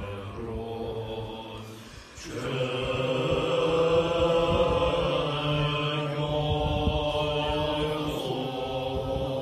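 Tibetan Buddhist monks chanting prayers together in unison, with men's voices holding steady recitation tones. The chant dips briefly about two seconds in, then resumes louder.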